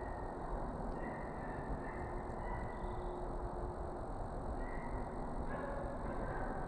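Short animal calls repeating every second or so in the distance, over a steady background hiss and rumble.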